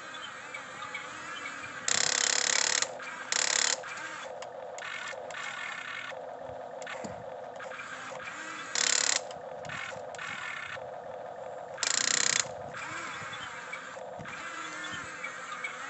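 Small motors and gears of a radio-controlled excavator whirring steadily as it works in snow, broken by four short, much louder bursts of noise.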